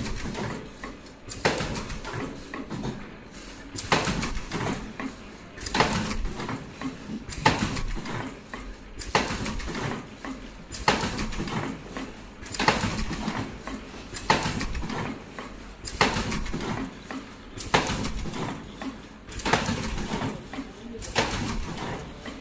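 Richpeace surgical mask production machine running, with a sharp mechanical stroke repeating evenly about every 1.7 seconds over lighter clatter.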